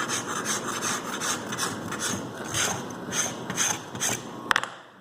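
Hand scraper scraping almost-dry filler flush in a chip repair on an oak floor: a quick run of short rasping strokes, about three a second, with a sharp click about four and a half seconds in.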